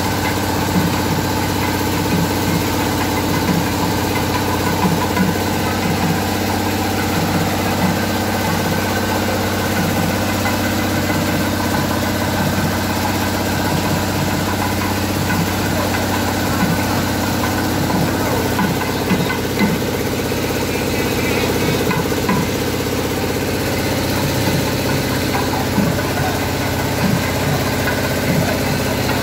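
Tractor engine idling steadily, a constant running hum that does not change.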